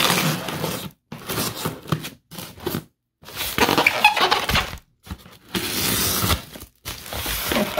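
Scissors cutting and tearing through packing tape on a polystyrene foam box, in several rough bursts with brief pauses between.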